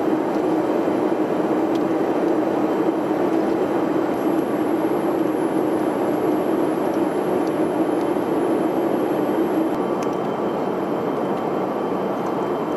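Steady cabin drone of an E-3 Sentry AWACS aircraft in its climb: the four turbofan engines and airflow heard from inside the fuselage, with a low hum that eases slightly about ten seconds in.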